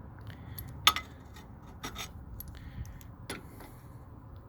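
Adjustable (Crescent) wrench clinking on a spark plug as it is fitted and turned to tighten the plug: several sharp metal clicks, the loudest about a second in.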